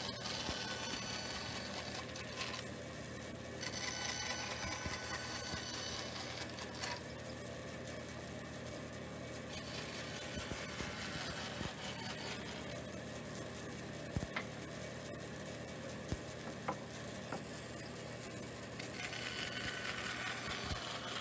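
36-inch band saw running, its blade cutting furniture-grade pine boards, with a steady hum and a high ringing tone. A few sharp clicks come in the second half.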